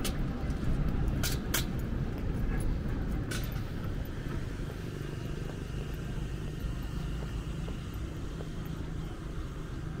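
Outdoor city ambience dominated by a low rumble of distant traffic, with a few sharp clicks in the first few seconds.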